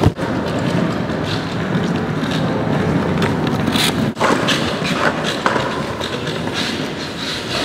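Skateboard wheels rolling over rough concrete paving: a steady grinding roll, broken briefly about four seconds in.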